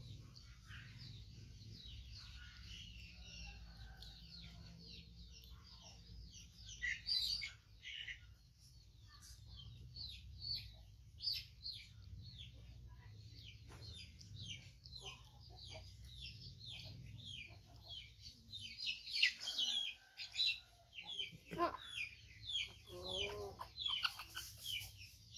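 Many short, high chirping calls in quick runs, thickest in the second half, with a few lower, fuller calls near the end over a faint low hum.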